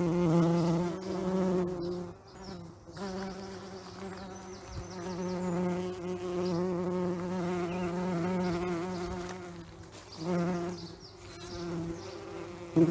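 Bees buzzing in flight: a wavering drone that fades briefly about two seconds in and again near ten seconds, then swells back. A short loud burst comes just before the end.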